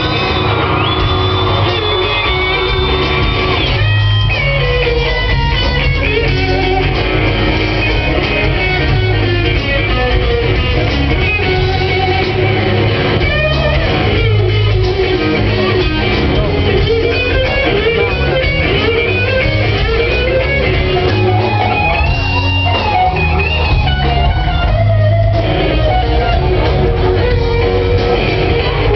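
Live rock band playing, led by an electric guitar whose notes bend and slide over bass and drums.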